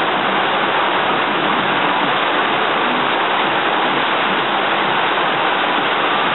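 Heavy rain falling in a steady downpour, hissing on a flat gravel-and-plant-covered roof and the foliage beside it.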